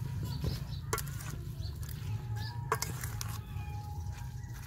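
Metal spoons scraping and clinking against a stainless steel mixing bowl as shredded green mango salad is tossed, with a few sharp clinks among the softer rustle.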